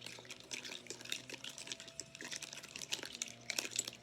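Slime mixture being stirred by hand right after baking soda is added: a fast, irregular run of small wet clicks and squishes.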